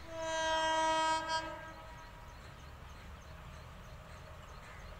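Train horn sounding one long blast with a short extra toot near its end, dying away about two seconds in. A low steady rumble remains.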